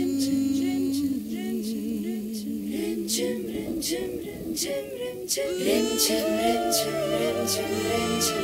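Recorded dance-drama soundtrack: a singing voice carrying a wavering, ornamented melody over regular sharp percussive strokes. More voices and instruments come in about five and a half seconds in, and the sound grows fuller.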